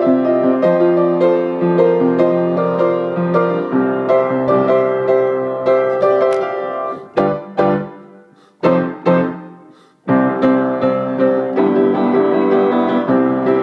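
Piano played at a steady pace. About seven seconds in, the playing thins to a few scattered chords that ring out while a page of the sheet music is turned, then carries on at full pace from about ten seconds.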